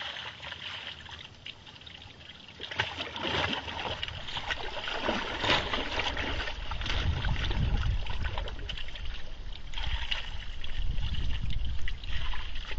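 Water poured from a bucket onto a large carp lying in a wet carp cradle, splashing onto the fish and the mat. The splashing gets louder from about three seconds in.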